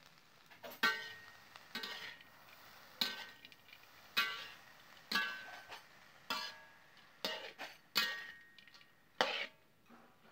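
Metal spatula stirring and turning crickets in a metal pan: about nine scraping strokes, roughly one a second, each with a brief metallic ring.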